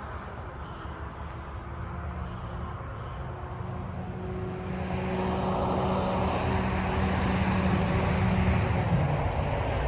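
Engine of a passing motor vehicle: a steady hum that grows louder about halfway through as it approaches, its pitch dropping slightly near the end as it goes by.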